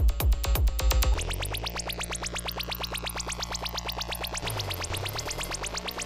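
Fast, hard electronic dance music from a live set of drum machine and synthesizers. A pounding kick drum drops out about a second in, leaving a held bass note under rapid clicking hits.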